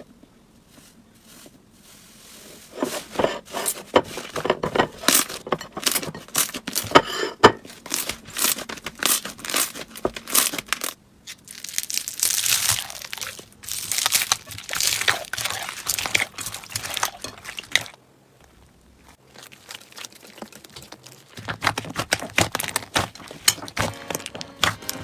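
Slime being squeezed and pressed by hand close to the microphone: dense runs of crackling clicks and crunchy, crinkling squelches, with a quiet pause about three-quarters of the way through before the clicking starts again.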